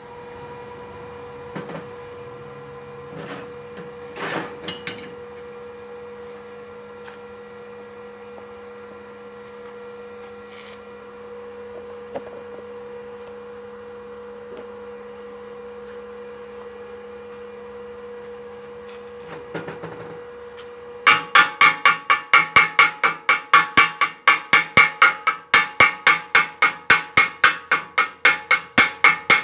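A steady electrical hum with a few scattered knocks. From about 21 seconds in, rapid metallic hammer taps about four a second, a chipping hammer knocking slag off a freshly laid stick weld bead.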